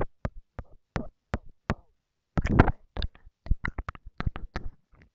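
Close-miked ASMR mouth sounds: a quick string of wet clicks and smacks from lips and tongue. The clicks break off for a moment about two seconds in, then come back as a denser run of smacking, followed by more single clicks.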